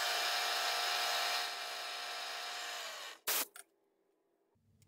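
Milling machine spindle running with a steady whine, then switched off, slowing slightly and stopping about three seconds in, followed by a short clunk.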